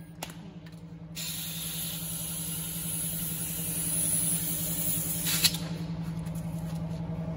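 Compressed air hissing from an air-hose nozzle into an air-expand shaft, inflating it so it grips a roll of abrasive cloth. The hiss starts about a second in, runs for about four seconds and cuts off sharply with a click.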